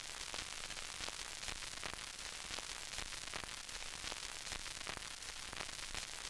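Steady static hiss with faint crackles, like a detuned TV or video-tape static sound effect.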